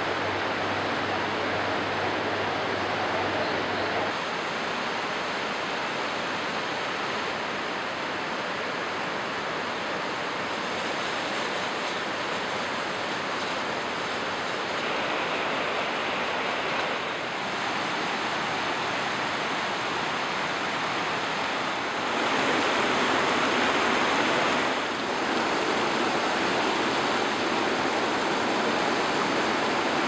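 Rushing water of the Ganges rapids, a steady wash of whitewater. Its level and tone shift abruptly a few times, and it is loudest for a few seconds about three-quarters of the way through.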